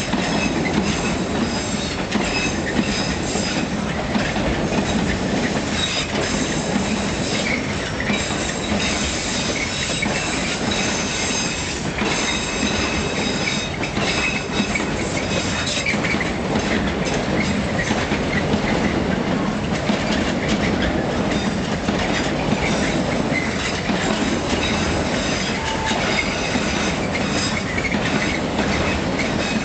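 Intermodal freight train's container wagons rolling past: a steady rumble with the clatter of wheels over the rails, and high-pitched wheel squeal that comes and goes.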